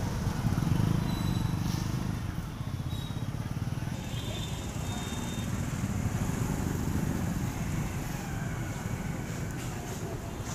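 Steady low rumble of road traffic, with motorcycle engines running nearby.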